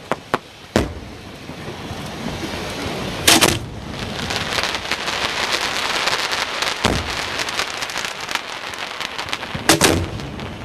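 Fireworks going off at close range: sharp bangs, with a dense crackling stretch from about four to nine seconds in. The loudest bangs come about three seconds in and near the end.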